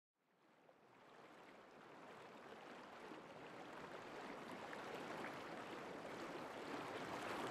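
Flowing river water: a faint, even rushing that fades in from silence and grows steadily louder.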